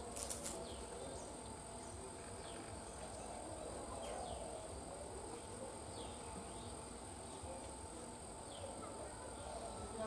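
Outdoor rural ambience: small birds give short falling chirps every second or so over a steady high-pitched drone and a low wash of distant noise. A brief crackling burst stands out about half a second in.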